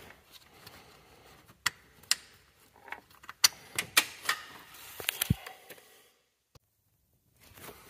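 Scattered sharp metallic clicks and clinks of hand tools and metal parts being handled, irregular and a second or so apart. They are followed by a dead-quiet stretch of about a second and a half near the end.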